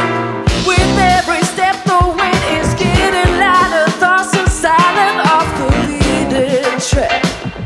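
Live band playing a song: drums keeping a steady beat under keyboards and a lead melody line that wavers and slides in pitch.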